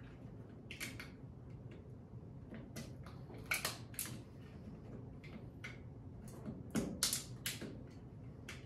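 3D-printed plastic cracking and snapping as a blade is worked and twisted into the seam between a print and its raft, the raft separating from the print. Irregular short cracks, bunched about a second in, around four seconds and around seven seconds.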